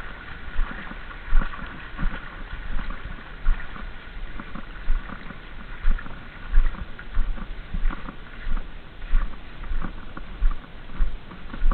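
Footsteps at a steady walking pace, about three steps every two seconds, over wet ground and shallow stream water, each step jolting the body-worn camera.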